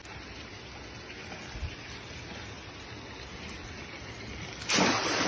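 Steady rush of flowing water, with one loud splash near the end.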